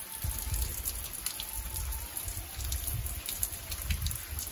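Water falling from two overhead rain-shower heads and splashing on the bathers and the floor: a steady spray of many small drops.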